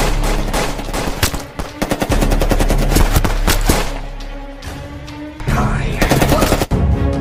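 Rapid gunfire and impacts in quick succession over dramatic music, from an action-film soundtrack. It eases off about four seconds in and picks back up near the end.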